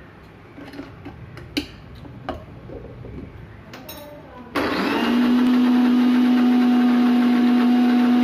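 A few clicks and knocks as the steel jar of an electric mixer grinder is handled and its lid fitted. About four and a half seconds in, the mixer grinder's motor starts suddenly and runs steadily with a strong hum, grinding biscuits and milk into a thick paste.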